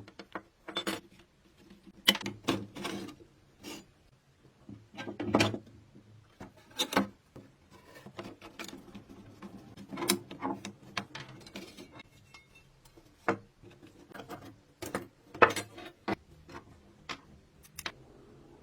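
Hand work on small metal parts: irregular clicks, knocks and scraping as parts and tools are picked up, set down and rubbed, with a few louder knocks spread through.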